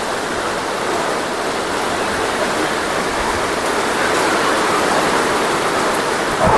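Heavy rain pouring down in strong wind, a steady dense rush of water.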